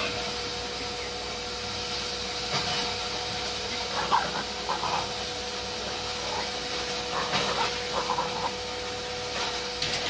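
A dog and a rooster scuffling, with short bursts of animal noise in two flurries, about four and about seven seconds in, over a steady hum.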